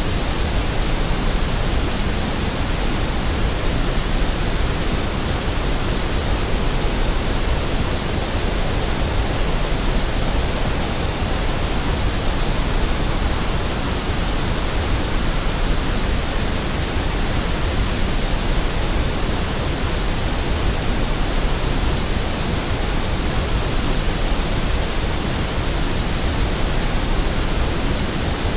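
Steady synthetic white noise: an even, unchanging hiss spread across all pitches, with no breaks or variation.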